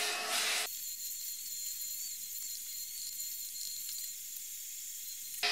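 Vacuum cleaner hose sucking dirt out of a car heater box: a thin, high hiss with no low motor hum, cutting in about a second in and stopping abruptly near the end.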